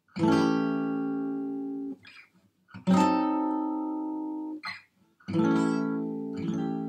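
Acoustic guitar: three single strummed chords about two and a half seconds apart, alternating between the two chord shapes, each left ringing; the first two are cut off abruptly by damping the strings, with short scratchy fret-hand noises as the hand shifts between shapes.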